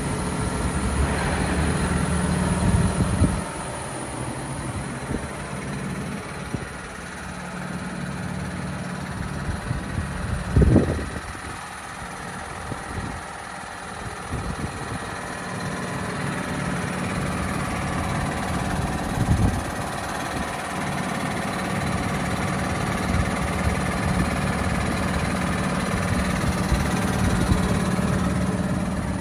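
John Deere 6145R tractor's six-cylinder diesel engine idling steadily. It dips somewhat in the middle, and there are two short knocks, the louder about a third of the way through.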